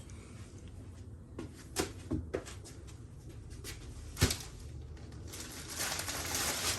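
A few scattered knocks and clicks of something being handled, the loudest about four seconds in, followed by a steady hiss near the end.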